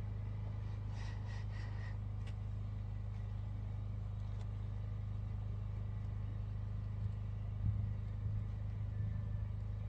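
A steady low hum, with a few faint clicks about a second in and some soft knocks near the end.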